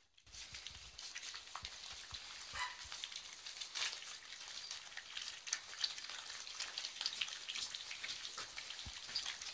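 Several puppies crunching dry kibble: a faint, steady patter of small crunches and clicks.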